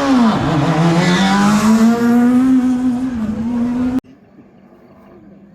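Rally car engine at high revs, its pitch dipping briefly about half a second in and then pulling steadily with a slowly rising pitch. The sound cuts off abruptly about four seconds in, leaving only faint background sound.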